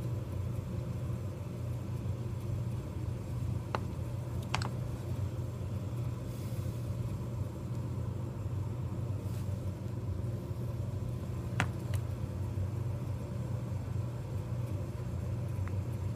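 Steady low hum with a few small, sharp metal clicks, two about four seconds in and two about twelve seconds in, as a lock ring is worked onto the pivot pin of a Husqvarna 136 chainsaw's chain brake handle.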